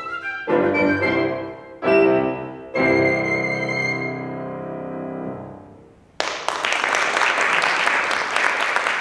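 Flute and grand piano ending a piece: three final chords, the last one held and dying away about six seconds in. Audience applause breaks out right after and carries on.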